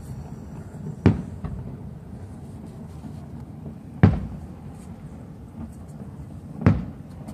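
Aerial firework shells bursting overhead: three loud bangs about three seconds apart, each trailing off in a short rumble.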